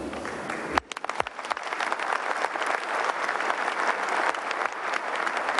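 Audience applauding: dense, fast clapping that breaks off sharply about a second in, then starts again and grows louder.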